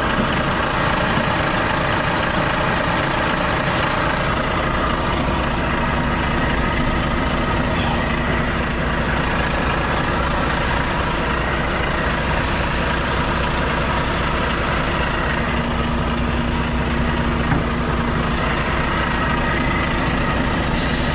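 Heavy lorry diesel engine idling steadily close by, with a small click or two.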